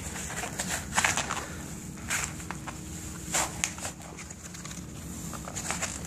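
Hands handling a sneaker and clothing: irregular rustling and scuffing, with sharper crackles about one, two and three and a half seconds in.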